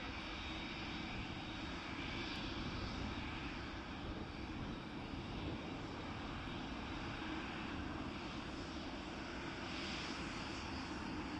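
Airliner engines running steadily: a constant, even noise that neither rises nor falls.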